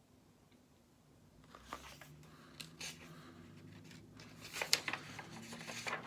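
Faint rustling and a few soft clicks of a storybook's paper page being turned, starting about a second and a half in.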